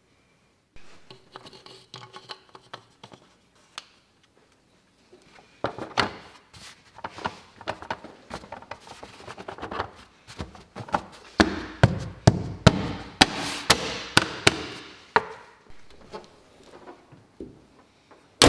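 Plastic engine cover being pushed back down onto a Mercedes W205 engine: a busy run of knocks, taps and rubbing of plastic on its mounts, busiest in the middle, then thinning out.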